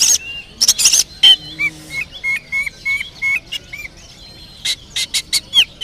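Oriental magpie-robin (kacer) singing a varied song stuffed with mimicked phrases. It mixes loud sharp notes with curving whistles, and about a second and a half in it repeats one short whistle about four times a second.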